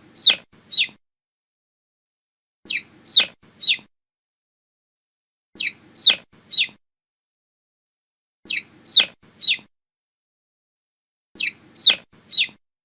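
Baby chick peeping: sets of three sharp, high peeps, each falling in pitch, repeated about every three seconds with silence between, the same set looped five times.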